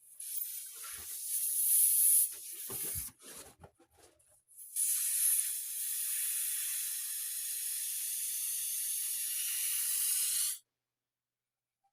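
Steady hiss of rushing air as a balloon is inflated: an uneven burst in the first two seconds, then a steady hiss of about six seconds that cuts off suddenly. No pop.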